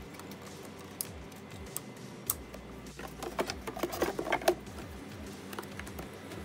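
Hands handling a rubber hose and plastic engine-bay parts: a few single clicks, then a busy stretch of clicking, rattling and rubbing about three to four and a half seconds in.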